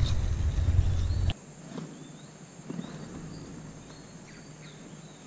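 A low rumble on the microphone cuts off suddenly about a second in. After it comes quiet outdoor ambience with scattered short, high bird chirps.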